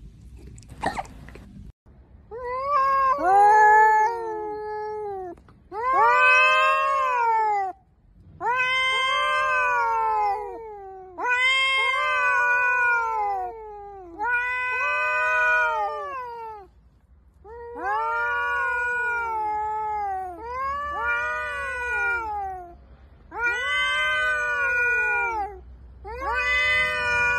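Two domestic cats caterwauling at each other in a face-off: about nine long, drawn-out yowls, each rising and falling over a couple of seconds with short gaps between them. This is the sound of a territorial standoff.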